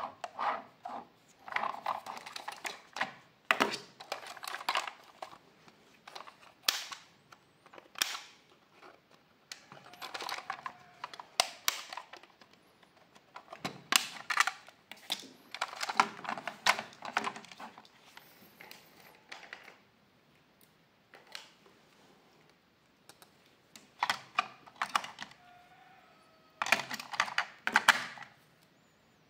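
Hard plastic toy being handled: irregular clicks, knocks and rattles as a toy skateboard with its Spider-Man figure is turned over, the figure taken off and the battery compartment opened. A quieter spell comes about two-thirds of the way through.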